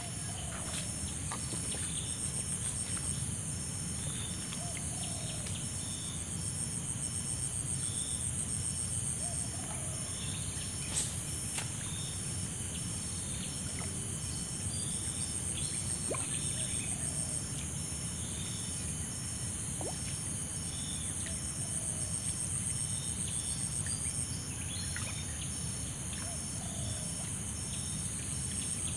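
Insects chirping steadily in a chorus: a continuous high trill, a second rapidly pulsing trill and short repeated calls about once a second, over a steady low background rumble. A faint falling call recurs every few seconds, and there is one sharp click about eleven seconds in.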